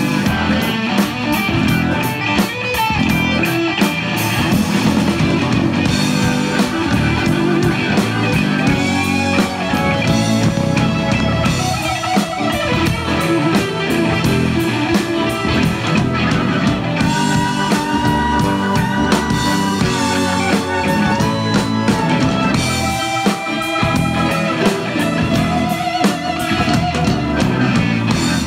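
Live rock band playing an instrumental passage: electric guitars over bass and a drum kit, with a lead line of sustained, bending notes.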